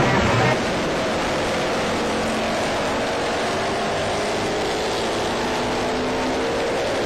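Classic racing motorcycle engine accelerating through a bend, its pitch rising steadily.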